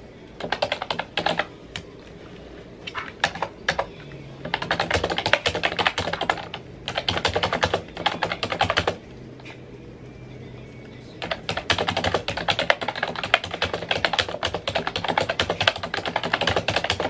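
Fast typing on a computer keyboard, rapid key clicks coming in bursts broken by short pauses, with a longer pause of about two seconds in the middle.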